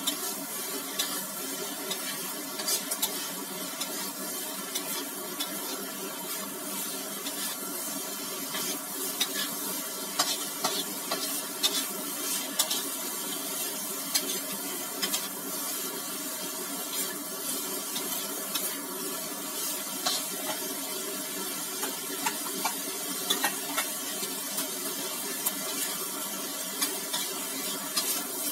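Stir-frying in a wok: a metal spatula repeatedly scrapes and knocks against the pan as fried tofu and vegetables are tossed, over a steady sizzle.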